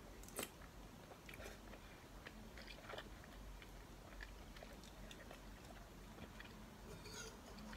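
Quiet eating sounds: chewing a mouthful of sujebi soup, with a few light clicks of a metal spoon against the bowl, the sharpest about half a second in.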